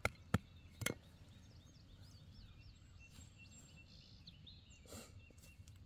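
Metal hand trowel striking hard, dry clods of tight, depleted soil to break them up, three sharp knocks within the first second, followed by a faint outdoor background.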